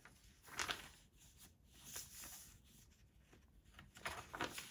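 Pages of a handmade paper junk journal being turned by hand: faint paper rustling, with a clearer swish about half a second in and more near the end.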